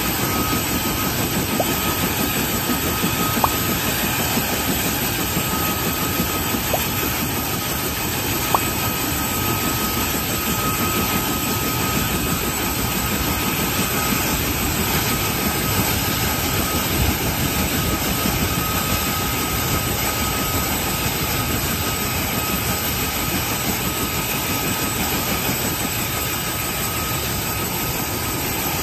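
Steady turbine noise of a Chinook helicopter on the ground, with a constant high whine over a loud rushing hiss. A few short sharp knocks stand out in the first half.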